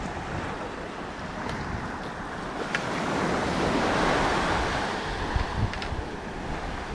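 Ocean surf washing onto the beach, swelling to a peak about four seconds in, with wind rumbling on the microphone and a few faint ticks.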